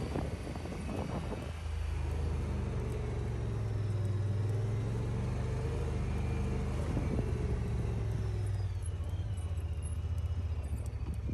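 Side-by-side UTV engine running steadily while driving a rough dirt trail, with brief rattling knocks from the machine about a second in and again around seven seconds.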